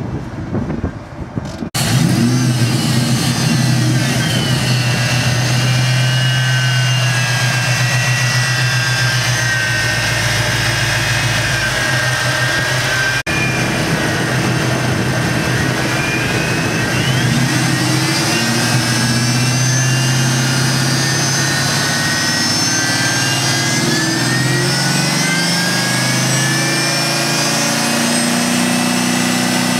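Supercharged 4.6-litre V8 of a 2003 Mustang Cobra with a Kenne Bell 2.8H twin-screw supercharger, running with the hood up: a steady idle with a high whine over the engine note, then revved up and down several times in the last dozen seconds, the whine rising and falling with the revs.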